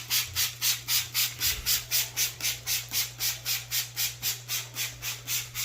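Drill brush scrubbing a surface, swept back and forth in an even rhythm of about four scratchy strokes a second, with a faint squeak.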